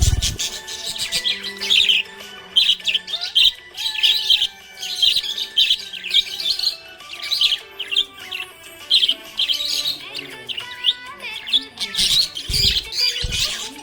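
Budgerigar chirping and warbling in quick clusters of short, high chirps that go on almost without a break. Background music with steady held tones and a few deep thumps runs underneath.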